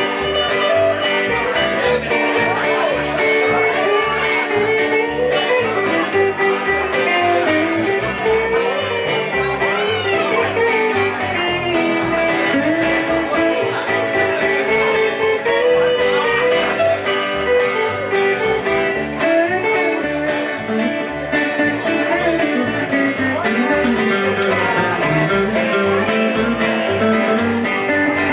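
Small live band playing an instrumental break: a guitar lead with bent, sliding notes over plucked upright bass and strummed acoustic guitar, no vocals.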